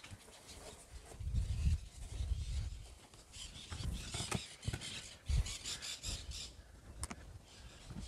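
Outdoor ambience: irregular low rumbles of wind buffeting the microphone, with faint high chirps or rustling and a few light clicks.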